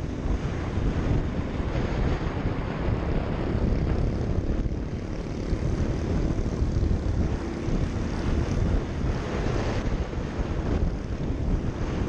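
Motorcycle engine running at speed under heavy, steady wind buffeting on a helmet-mounted microphone.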